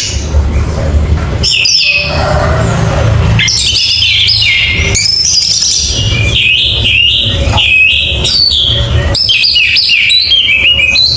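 Orange-headed thrush singing vigorously: a rapid, varied run of whistled phrases with quick up-and-down sweeps, pausing briefly about two seconds in, over a steady low hum.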